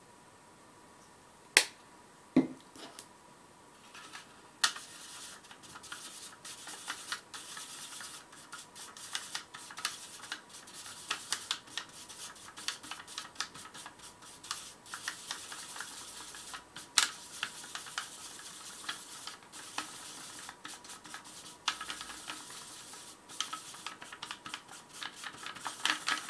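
Paint being stirred in an aluminium foil dish: a small tool scraping and rubbing against the foil, with many small clicks. Two sharp knocks come about two seconds in, and the steady scraping starts about four seconds in.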